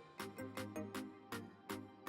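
Background music with a steady beat: regular drum hits, about three a second, over held bass and instrument notes.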